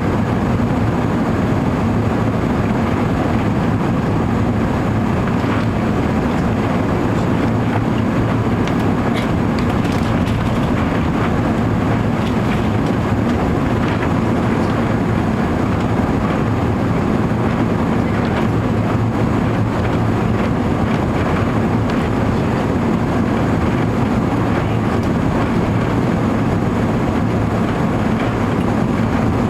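Steady cabin noise of an Airbus A380 under power, a constant low drone from its four Rolls-Royce Trent 900 engines and the airflow, heard from inside the passenger cabin.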